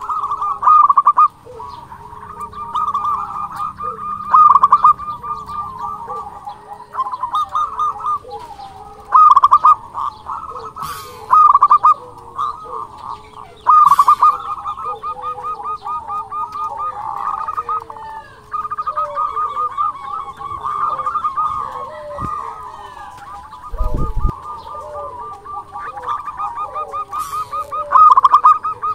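Zebra dove (perkutut) song: loud bursts of rapid rolling coos every few seconds, over a continuing series of softer, lower cooing notes.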